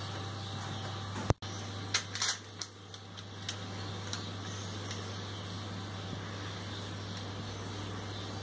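Spoon clinking and scraping against a mixing bowl a few times while chocolate cake batter is scraped out into a paper-lined cake tin, over a steady low hum.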